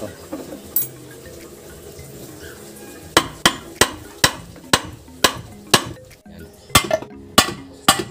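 Hammer blows on steel at a Suzuki Multicab 4x4 five-speed manual transmission under overhaul, driving a shaft and its bearing out of the case. About a dozen sharp metallic strikes with a short ring, roughly two a second, start about three seconds in.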